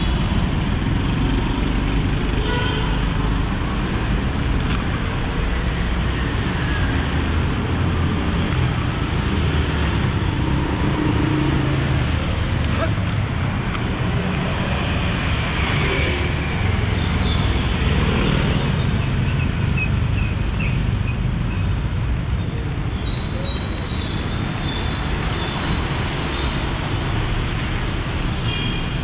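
Busy city street traffic: a steady wash of passing vehicle engines and tyre noise, with scattered voices.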